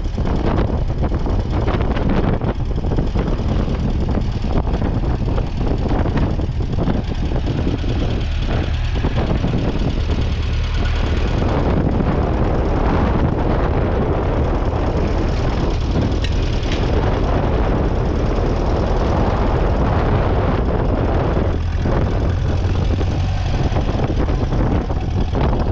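1951 Ferguson TED20's 2.1-litre four-cylinder petrol/TVO engine running steadily.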